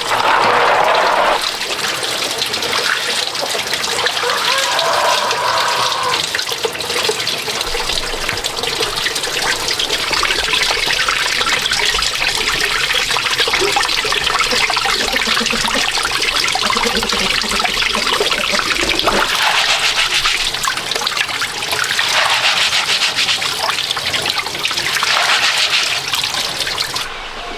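Water running and splashing steadily. It stops abruptly near the end.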